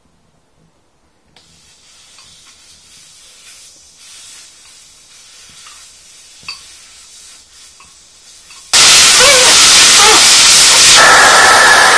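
Faint clicks and handling, then about three-quarters of the way in a sudden, very loud, steady hiss of air rushing out of a motorcycle tyre's valve stem with the valve core out, as the tyre is let down to take sealant.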